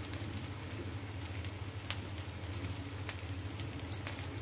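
Rava uttapam batter sizzling on a hot tawa: scattered small crackles and pops over a steady low hum.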